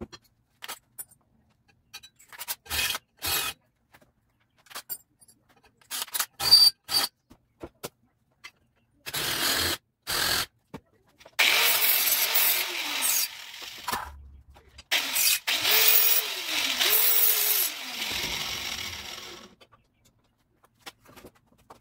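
Clicks and light knocks of small metal parts being handled. Then a power drill runs: a short burst and a stop about nine seconds in, then about eight seconds of drilling into metal, with the motor's pitch sagging and picking up again under load as it bores the mounting-screw holes in a steel license plate bracket.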